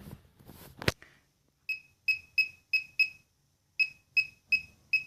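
Laser projection keyboard giving a short electronic beep for each key tapped: a run of five beeps about three a second, a brief pause, then four more. A single sharp click comes just before the beeps start.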